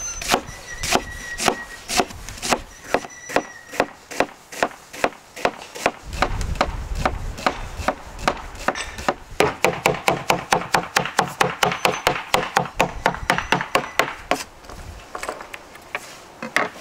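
Knife chopping red onion on a wooden cutting board, each cut a sharp knock of the blade on the wood. The chops come about two a second, speed up to about four or five a second past the middle, then slow again near the end.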